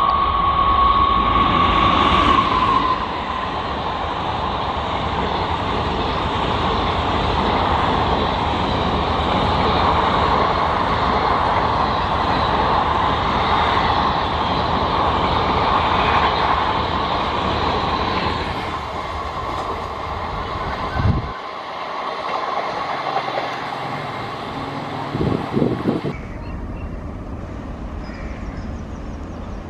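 Indian Railways WAP-4 electric locomotive and its ICF passenger coaches passing at speed. A steady horn note sounds for the first couple of seconds, then the coaches run past. Near the end the sound drops to a quieter, more distant train.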